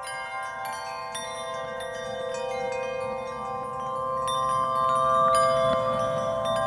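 Chimes ringing: many struck metallic notes overlapping and sustaining, growing gradually louder.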